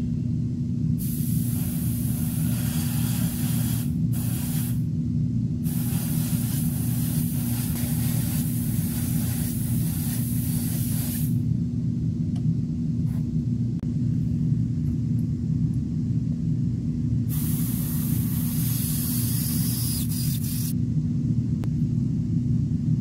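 Paint being sprayed onto plastic model-kit wheels, a hiss that comes in three long bursts of several seconds each, the last one near the end. Under it a steady low machine hum runs without a break.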